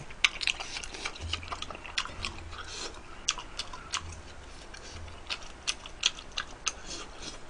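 Close-miked chewing of chewy rice cakes in spicy sauce: an irregular run of sharp wet mouth clicks and smacks, several a second.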